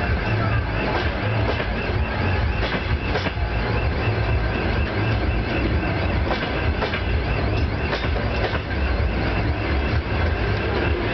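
Passenger coaches rolling past on the track, wheels clicking over the rail joints in pairs under a steady low rumble.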